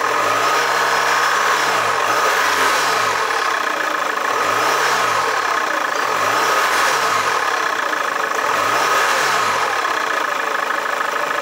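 Holden Captiva's turbo-diesel engine, bonnet open, revved about five times in short blips, each rising and falling in pitch, over a steady high whine: the turbo noises of a revving turbo diesel.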